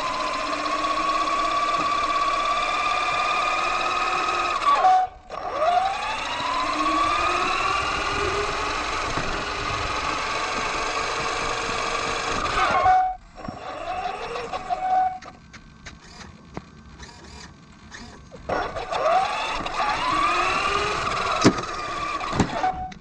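Axial Yeti XL RC truck's electric motor and drivetrain whining up close, the pitch rising and falling with the throttle. It cuts out briefly about five seconds in and again about thirteen seconds in, then runs quieter for a few seconds before picking up again. There is a sharp knock near the end.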